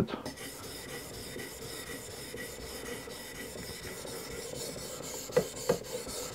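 Abrasive sharpening stone on a guided knife-sharpening system scraping steadily back and forth along a knife's edge, grinding the bevel at 22 degrees to raise a burr. Two short knocks come near the end.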